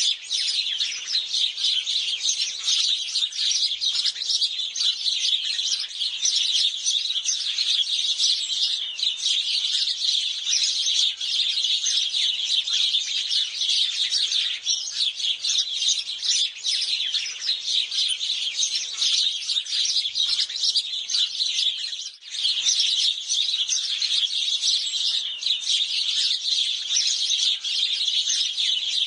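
House sparrows chirping in a dense, unbroken stream of overlapping chirps, with a brief lull about three-quarters of the way through.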